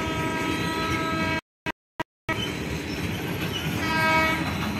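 BOXN freight wagons rolling past on the track, with a train horn sounding in a steady note for over a second at the start and again near the end. The sound cuts out completely for about a second in between.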